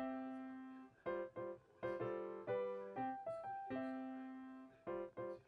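Background music: a piano plays a gentle melody over chords, each note struck and fading away.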